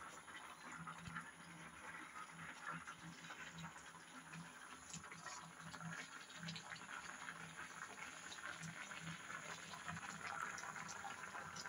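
Pot of rice boiling, a faint, irregular bubbling and crackle.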